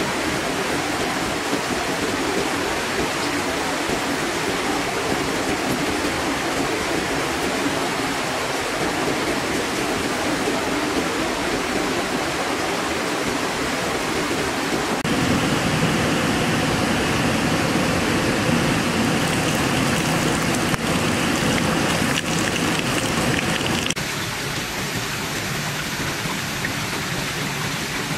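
Steady rush of running water, as from a forest stream over rocks. It turns louder and fuller from about 15 seconds in, then thinner again from about 24 seconds.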